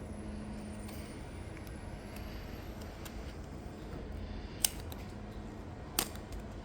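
Hands working at a speed cube's packaging, with two sharp clicks or snaps, the louder one about four and a half seconds in and a second at about six seconds, over a low steady hum.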